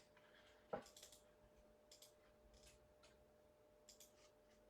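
Near silence with a few faint clicks from computer input, the clearest just under a second in.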